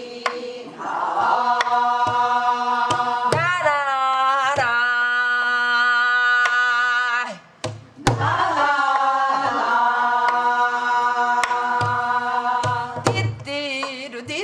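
A woman singing wordless Korean gueum (vocal mouth music) in two long held notes with wavering pitch, with a short break about halfway. Under the voice, strokes on a sori-buk barrel drum keep a steady gutgeori rhythm.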